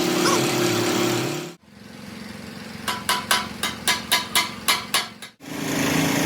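A machine motor running steadily, then after a cut, about ten quick hammer blows on ringing metal, a few per second. The steady motor noise cuts back in near the end.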